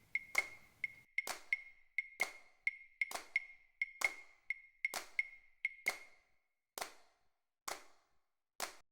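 Wood-block-like percussive clicks in a quick syncopated pattern, many carrying a short high ping, thinning after about six seconds to single clicks roughly a second apart.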